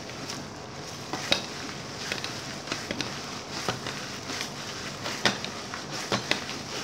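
Gloved hands kneading minced pork mixture in a stainless steel bowl: wet squishing and crinkling of thin plastic gloves, with irregular sharp clicks.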